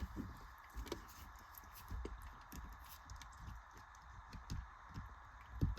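Faint handling noises: scattered small clicks and soft knocks as the speaker wiring and plastic dashboard speaker housing are handled, with a few louder knocks near the end.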